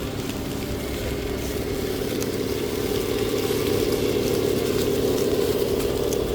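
1/10-scale RC crawler's electric motor and gear train whining steadily as it drives, with scattered light clicks over the top.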